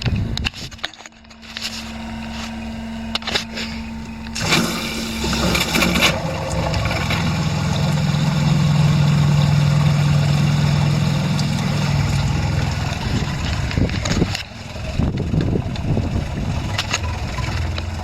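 Small electric water pump running with a steady hum, pushing water through push-fit plastic pipework whose fittings are not pushed fully home and are leaking. There is a burst of hissing about four seconds in, after which the hum drops in pitch and grows louder, then dies away near the end.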